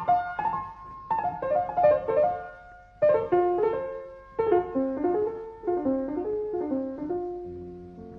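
Solo piano music playing phrases of notes that step down in pitch, a new phrase starting every second or two.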